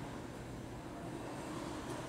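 Steady low background rumble of room noise, with a faint click near the end as pliers work coloured craft wire.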